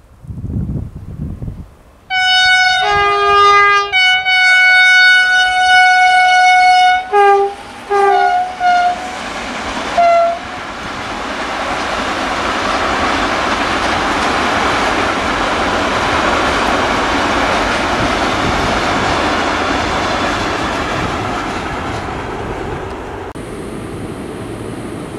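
E.494 electric locomotive giving a long horn salute as it passes: after a few seconds of approaching rumble, several multi-tone horn blasts with changing chords, one held for about three seconds, then four short toots. It is followed by the steady rumble and wheel clatter of a long train of freight wagons rolling by.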